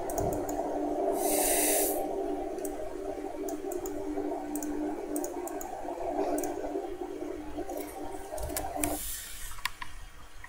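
Game-show suspense music after a final answer: a low drone of several steady tones held together, which cuts off suddenly about nine seconds in. A short burst of hiss comes about a second in.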